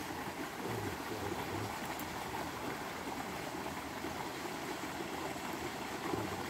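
Steady rushing background noise of running water, with no clear single event.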